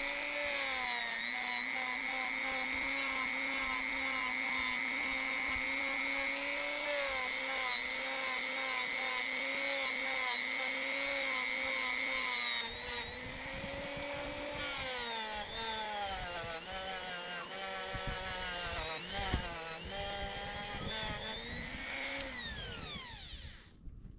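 A small electric rotary tool running at a steady speed. About 13 s in the sound roughens and the pitch wavers as it is worked, then it winds down with a falling pitch and stops near the end.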